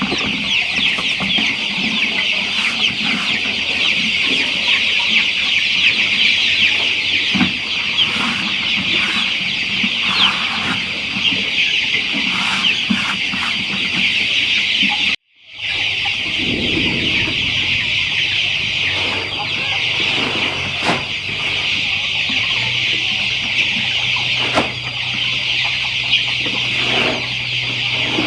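A large flock of chickens calling and clucking all at once in a dense, continuous chorus. The sound cuts out briefly about halfway through, and a steady low hum joins in the second half.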